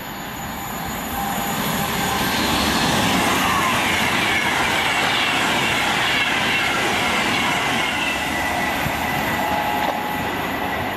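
Virgin Trains Class 390 Pendolino electric train passing through at speed: a loud rush of wheels and air, with whining tones from the train that fall slowly in pitch as it goes by. It eases off a little near the end.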